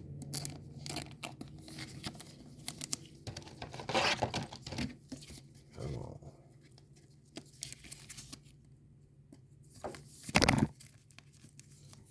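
Chrome trading cards being handled and flipped through, with scattered rustling, crinkling and soft clicks, and a louder thump about ten seconds in.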